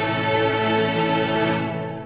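Background music: a sustained, held chord that begins to fade out near the end.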